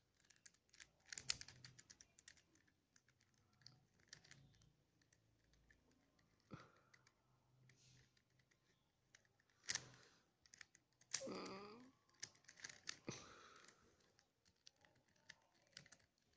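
Plastic pieces of a Z-Vulcano pyramid twisty puzzle clicking and scraping faintly as they are turned and worked by hand, in scattered small clicks with a few louder ones. The turns are stiff and only go a little way.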